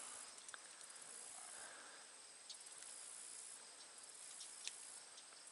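Quiet outdoor ambience: faint, high-pitched chirring of crickets, steady with stretches that come and go, and a few faint ticks.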